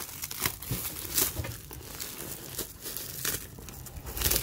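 Clear plastic packaging bag crinkling and crackling as a round foam seat pad is pulled out of it, with louder crackles about a second in and near the end.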